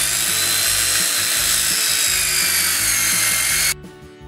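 Handheld circular saw cutting lengthwise through a thick, frozen creosote timber slab. The blade runs hard and steady under load, its whine sagging slightly in pitch, then the sound cuts off suddenly near the end.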